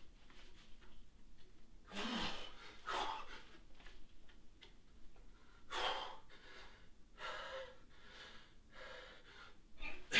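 Hard, loud breathing of a lifter straining through heavy log snatch reps: gasps and forced exhales every second or two, one with a short grunt in it.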